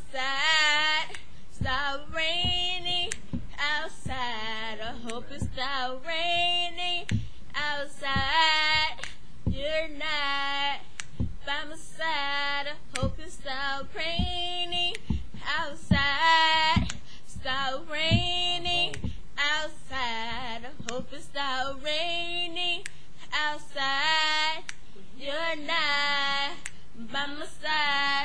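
A young woman singing unaccompanied, in long phrases of wavering, bending notes with short breaths between them.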